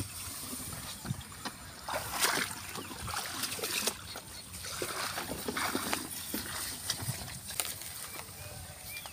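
Tall grass rustling and swishing against a person moving through it on foot, with sloshing and splashing in shallow muddy water.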